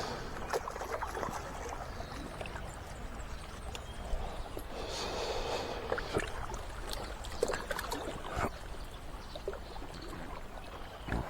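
Faint moving water with a few light clicks scattered through it, and a brief swell of rushing noise about halfway through.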